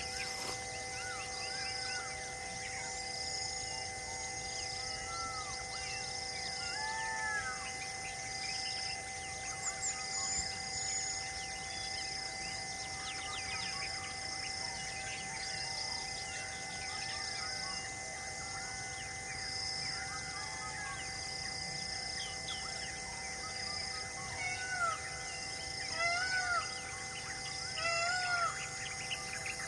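Wild birds chirping in short, repeated arched notes, with a high insect-like note pulsing about once a second and a few steady held tones underneath; the bird calls get louder near the end.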